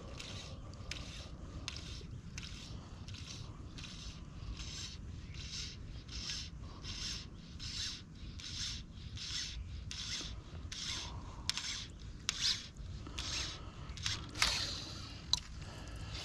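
Fly line being stripped in by hand in quick regular pulls, each pull a short rasping zip, about three every two seconds. A few sharper clicks come near the end.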